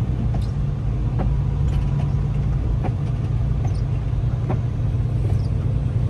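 Semi truck's diesel engine and road noise heard from inside the cab: a steady low rumble, with a light tick repeating a little more than once a second.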